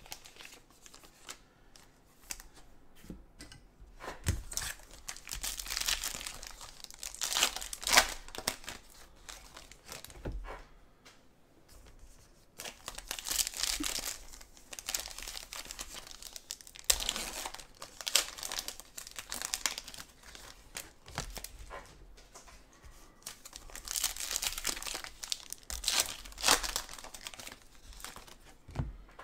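Foil wrappers of Panini football card packs being torn open and crinkled by hand, in four bouts of crackling with quieter handling between.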